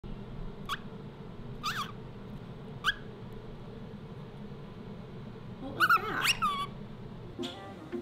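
Whiteface cockatiel chirping: three short rising chirps in the first three seconds, then a louder run of calls about six seconds in.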